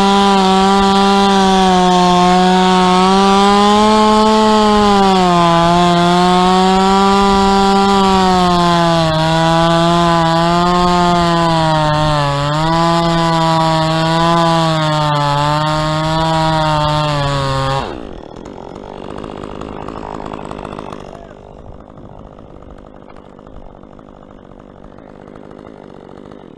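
Chainsaw running at high revs while cutting through a dead palm trunk, its pitch dipping several times as the chain loads up in the wood. It shuts off suddenly about eighteen seconds in, leaving a much quieter rustling noise.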